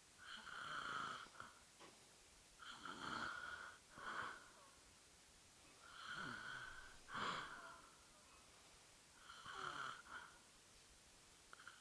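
A woman snoring in her sleep, with four snoring breaths about three seconds apart. Most are a longer snore followed closely by a shorter one.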